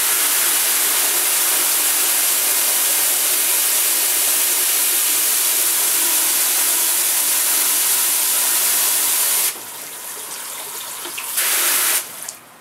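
Water running from a hose into a plastic bucket in a utility sink, a steady hiss. A little before ten seconds in the flow drops and goes quieter for about two seconds, comes back briefly, then shuts off near the end.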